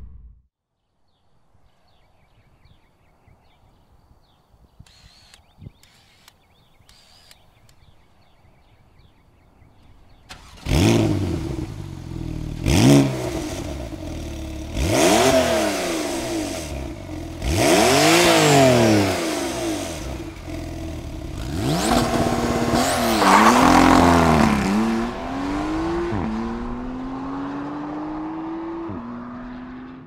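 A 2017 Porsche 911 Carrera S twin-turbo flat-six with an Akrapovič titanium slip-on sport exhaust and link pipes, starting about ten seconds in, then blipped through several quick revs that rise and fall in pitch, with a double blip near the end. It then settles to an idle that slowly drops in pitch.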